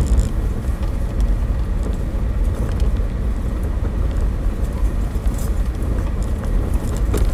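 Car driving over a rough dirt track, heard from inside the cabin: a steady low rumble of engine and tyres, with faint light clicks and rattles.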